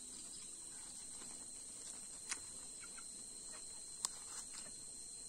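Steady, high-pitched insect chorus trilling, with two faint sharp clicks about two and four seconds in.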